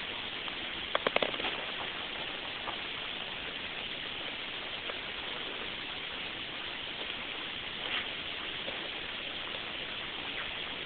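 Steady hiss, with a quick run of four clicks about a second in and a faint soft blip near the eight-second mark.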